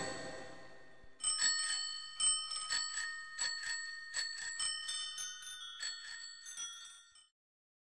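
Music fading out, then a bicycle bell rung over and over in a quick series of rings, about two to three a second, growing fainter until it stops about seven seconds in.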